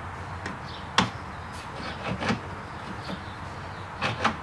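A few sharp clicks and knocks of hand tools on metal fasteners: one about a second in, another after two seconds, and two close together near the end, over a low steady hum.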